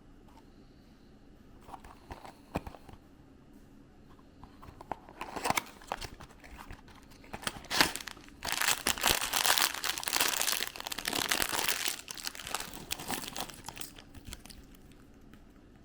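Packaging crinkling and tearing as it is opened: a few light clicks and rustles first, then a dense stretch of crinkling from about halfway in lasting several seconds, tapering off near the end.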